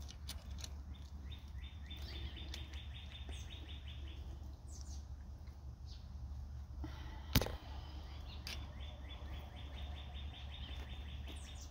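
A songbird singing a rapid trill of short, quickly repeated high notes, twice, each about three seconds long, over a steady low hum. A single sharp click about seven seconds in.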